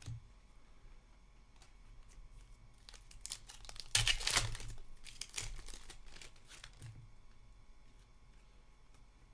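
Foil wrapper of a hockey card pack being torn open by hand: one loud crinkling tear about four seconds in, with lighter crinkles and clicks of handled cards around it.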